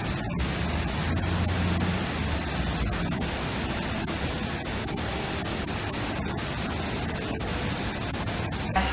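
A steady, even hiss with a low hum beneath it, broken by a few brief dropouts; a sharp click near the end.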